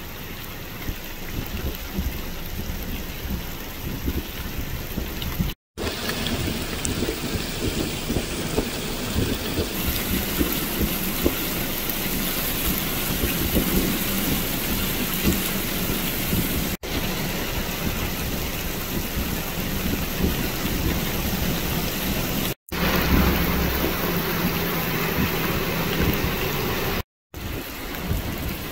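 Heavy rain pouring steadily onto flooded ground and a wet road, with a deep rumble under the hiss in places. The sound drops out suddenly for a moment four times.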